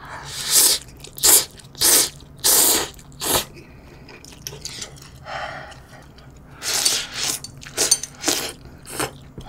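A person slurping instant ramen noodles from a bowl in short bursts: about five in the first three and a half seconds, a quieter stretch with chewing, then another run of slurps in the last few seconds.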